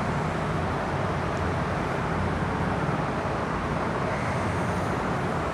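Steady rushing background noise with a low hum underneath, even throughout.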